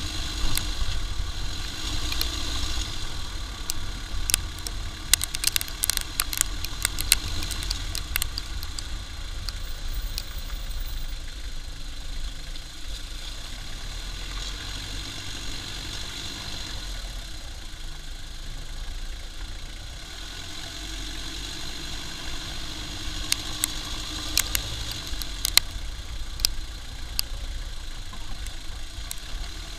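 Toyota Lucida turbodiesel heard from beneath the moving car: a steady rumble of road and wind noise with the engine's drone. Scattered sharp ticks come in clusters in the first third and again near the end.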